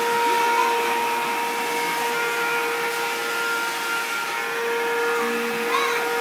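Vacuum cleaner running steadily, its motor making a constant whine over a rushing noise.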